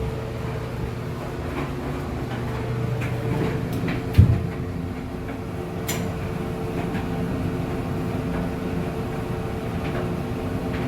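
Steady machine hum with a few light clicks and one heavy thump about four seconds in.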